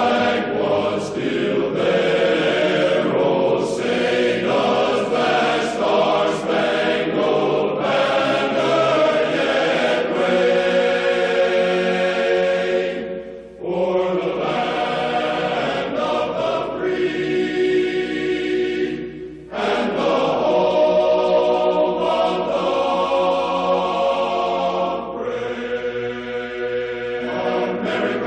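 A choir singing slow, sustained phrases, pausing briefly twice between phrases.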